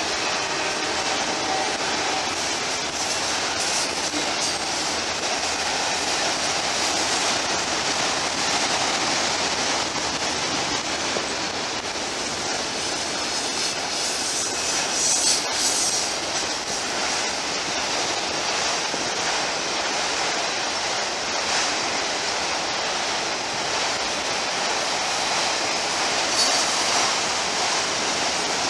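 Enclosed autorack freight cars rolling past on the rails, a steady rumble and rattle of steel wheels and car bodies. There are brief louder spots about fifteen and twenty-six seconds in.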